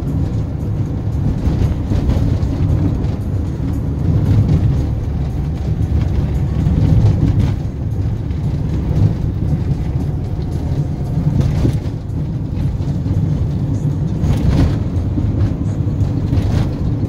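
Car interior noise while driving: a steady low rumble of engine and tyres on the road.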